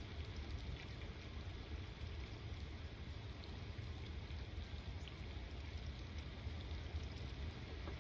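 Steady rain with scattered drops ticking, over a constant low rumble.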